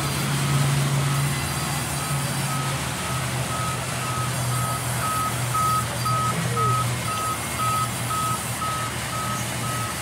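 Band sawmill running steadily as its blade saws a log into slabs, with a steady motor hum. From about two seconds in, a reversing alarm beeps evenly about two to three times a second.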